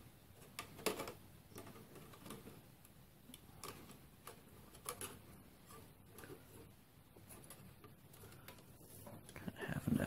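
Faint, scattered clicks and taps of a graphics card and its bent metal bracket knocking against the steel computer case as the card is worked into its slot, with a louder bit of handling noise near the end.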